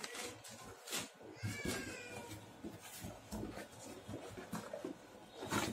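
A cat meowing once, a short gliding call about a second and a half in, among a few clicks and knocks.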